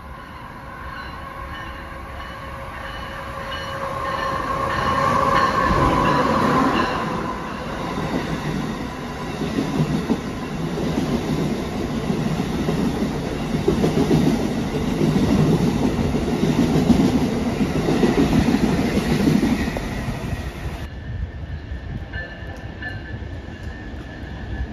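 Amtrak electric passenger train approaching and running through the station at speed, with a steady whine as it nears. The rumble and clatter of the passing cars follows. The sound drops away abruptly near the end.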